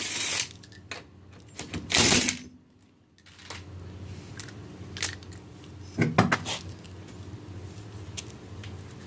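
Ryobi cordless impact tool spinning lug nuts off a car wheel in two short bursts, at the start and about two seconds in, then scattered metallic clinks of the loose lug nuts.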